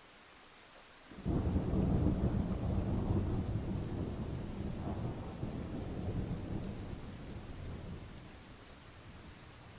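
A roll of thunder breaks suddenly about a second in, a deep rumble that slowly dies away over several seconds, over a faint steady hiss.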